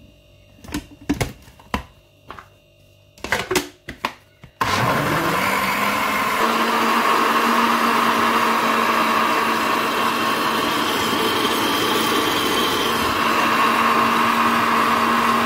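A few clicks and knocks, then about four and a half seconds in a countertop blender's motor starts, winds up in pitch and runs steadily, pureeing peaches and carrots with water.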